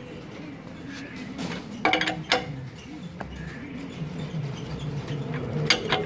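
Steel L-shaped wheel brace clinking against the wheel nuts of a steel wheel as it is fitted and turned to tighten them: a few sharp ringing clanks about two seconds in and another near the end.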